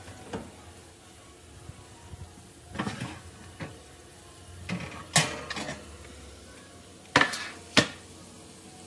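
Oven door opened and a metal baking tray taken out and set down: a series of metallic clanks and knocks, the loudest two near the end.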